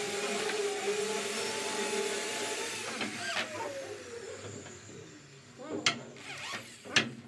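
Corded Bosch electric drill running as it bores into teak wood through a brass hinge's screw holes. About three seconds in the motor winds down with a falling whine, and a few sharp knocks follow near the end.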